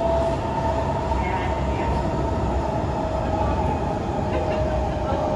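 Interior of a Kawasaki C151 MRT train running between stations: a steady rumble of wheels on the track with a steady whine from the traction motors.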